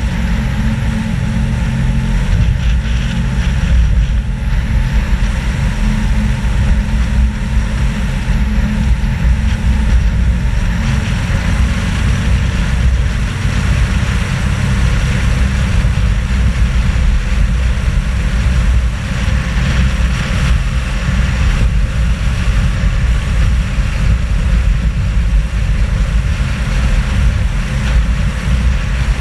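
Nissan Patrol GR driving at a steady pace: a constant engine and road drone, with heavy wind rumble on the outside-mounted camera's microphone.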